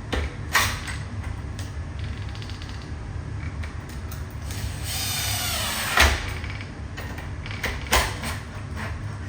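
Lock-changing work on a mortice deadlock: scattered metal clicks and knocks, with a small power screwdriver whirring for about a second and a half past the middle and ending in a sharp click. A steady low hum lies under it all.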